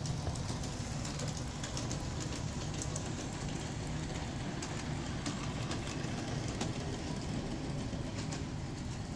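Aristo-Craft G-scale 0-4-0T model locomotive and two coaches running on brass track: a steady low hum and rumble from the motor and wheels, with scattered sharp clicks.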